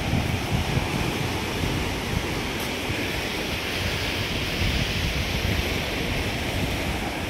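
Ocean surf washing onto a rocky shore as a steady wash of noise, with wind buffeting the microphone in low gusts.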